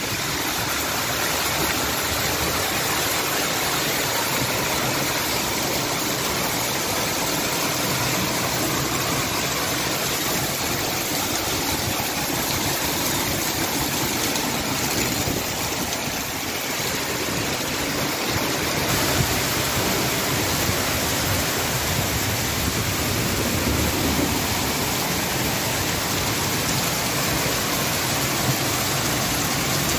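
Hailstorm: hail and heavy rain pouring down in a steady, dense rush.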